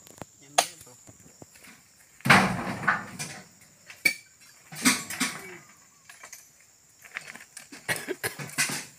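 Oil palm fruit bunches tossed into a truck's metal bed: a series of heavy thuds and knocks with a rough, crunching tail, the loudest about two seconds in and more around the middle and near the end.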